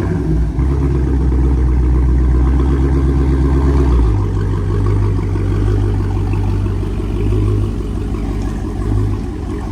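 Dodge Challenger Hellcat's supercharged 6.2-litre V8 idling loud just after startup through a nearly straight-piped exhaust, with the resonators and mid mufflers deleted. The fast idle settles to a lower, deeper note about four seconds in.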